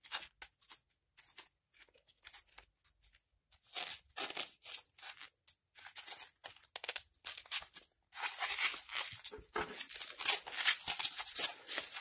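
Rubber-coated work gloves rubbing and crinkling against a Huawei lithium-ion phone battery as it is handled and turned over, with scattered scrapes and clicks and a denser stretch of rustling in the last four seconds.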